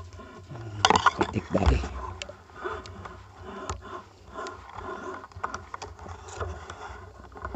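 Irregular scraping, rustling and knocking of handling close to the microphone, with a cluster of sharp knocks about a second in, as a fishing crossbow's line and bolt are pulled back in from the water.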